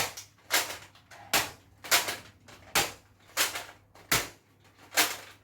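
Nerf blaster firing shot after shot: about ten sharp snaps, spaced roughly half a second to a second apart.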